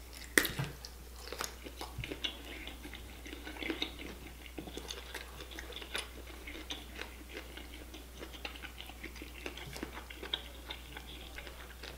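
Close-miked chewing of saucy seafood boil: soft wet mouth clicks and smacks scattered throughout, a little louder in the first second.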